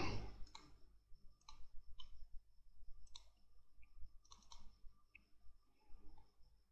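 Faint computer mouse clicks at an irregular pace, some in quick pairs like double-clicks.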